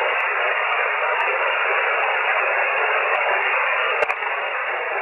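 Amateur shortwave radio receiver in single-sideband mode hissing with band noise and static while no station is transmitting, the hiss cut off below and above the voice passband. A sharp click about four seconds in.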